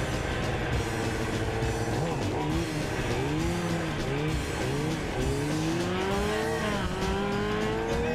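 Stunt motorcycle's engine revving in quick up-and-down blips, then climbing steadily in pitch over the last few seconds as it accelerates.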